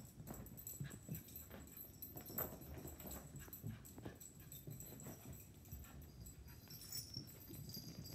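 A puppy and a dog playing on carpet: faint whimpers and yips among scuffling and soft thumps of paws.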